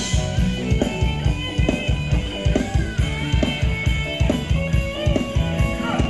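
Live band playing Thai ramwong dance music, with a steady drum beat under the melody.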